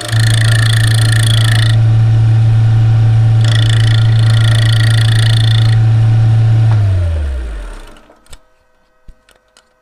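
Wood lathe running with an off-centre ash workpiece, with two spells of higher-pitched cutting noise from the gouge. About seven seconds in the lathe is switched off, and its hum falls in pitch as it spins down, stopping about a second later.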